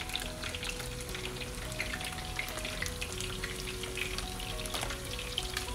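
Two butterflied, vinegar-marinated milkfish (daing na bangus) frying in hot oil in an uncovered pan: a steady sizzle full of small crackles. The fish was patted dry with paper towels, so the oil sizzles without much spattering.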